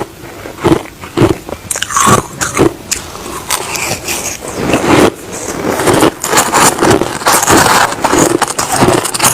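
Crushed ice being bitten and chewed close to the microphone: a run of irregular crunches and crackles that grows denser and more continuous in the second half.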